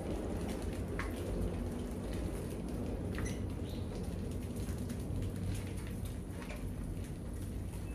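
Many rats scrambling over and inside a wire-mesh cage trap: a steady scratching and pattering of claws on the mesh and floor, with a few brief high squeaks, over a steady low hum.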